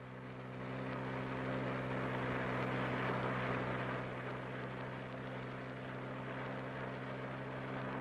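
A vehicle's engine running steadily: a low, even hum under a rushing noise that swells over the first three seconds and then holds.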